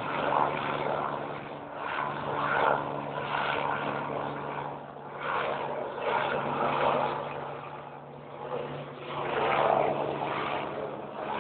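Helicopter flying low overhead: a steady drone from its engine and rotor, with the noise swelling and fading every couple of seconds as it circles.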